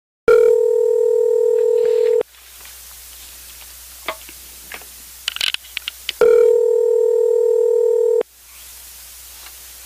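Telephone ringback tone from an outgoing call ringing at the other end: two steady two-second rings, the second starting about four seconds after the first ends. The gap between rings holds faint line hiss and a few soft ticks.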